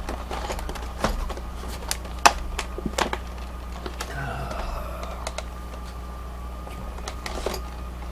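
Lock parts and tools being handled on a workbench: a few sharp clicks and knocks in the first three seconds, over a steady low electrical hum.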